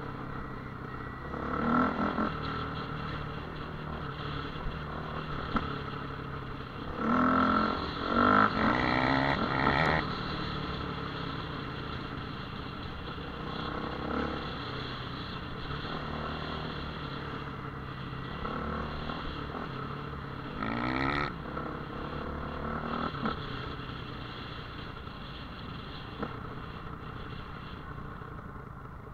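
Off-road dirt bike engine running on a trail ride, with the throttle blipped in several short bursts of revving. The longest burst lasts a few seconds, about a quarter of the way in.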